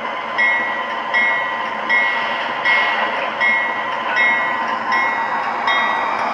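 The onboard sound system of an MTH model BNSF diesel locomotive ringing its bell steadily, about eight strokes, over the model's engine sound and the rumble of its wheels rolling on the track.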